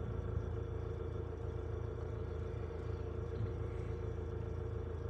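Diesel engine idling with a low, steady rumble, heard from inside a vehicle cab during a gap in CB radio traffic.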